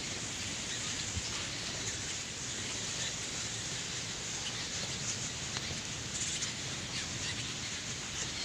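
Cave bats chittering: a steady hiss with faint, scattered high squeaks and ticks.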